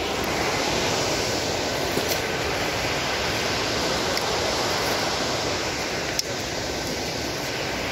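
Steady rush of a river running over rapids, with a faint click or two.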